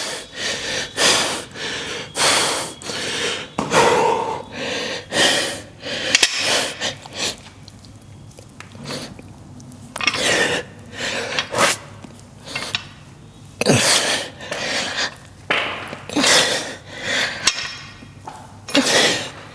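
A person breathing hard while lifting: a long run of sharp, forceful exhalations, about one or two a second, with a short lull about eight seconds in.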